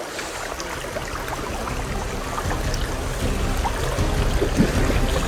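Shallow, stony stream running, with water swishing and splashing around legs wading through it; the sound grows steadily louder.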